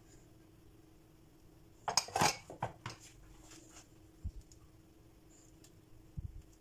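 Kitchen utensils clattering and clinking against dishes about two seconds in, then two soft, dull knocks while a spatula spreads brownie batter in a metal loaf pan.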